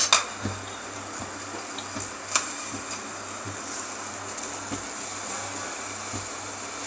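A metal spoon clinks against a pot of milk heating on the stove, right at the start and once more about two and a half seconds in. Between and after, a steady low hiss.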